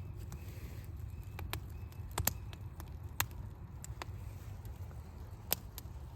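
Small wood bonfire crackling, with sharp irregular pops about six or seven times over a low steady rumble.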